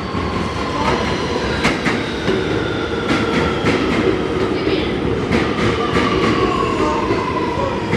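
R211T subway train running on the rails: a steady rumble with irregular sharp clicks, over a thin electric whine that falls slowly in pitch.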